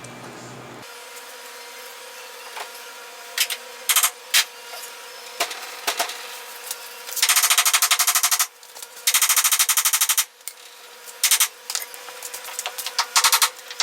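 Air impact wrench hammering in short bursts: a rapid rattle, with two longer runs of about a second each around seven and nine seconds in, and shorter blips before and after.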